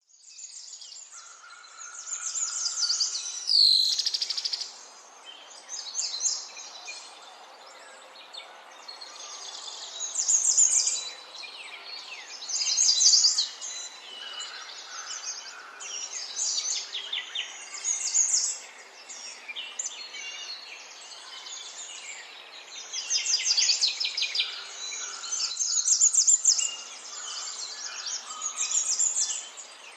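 Several songbirds chirping and trilling, their high calls overlapping in bursts, with one loud falling whistle about three and a half seconds in.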